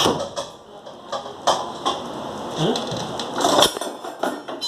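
Cooking pot and metal utensils clinking and knocking in a series of separate, irregular knocks.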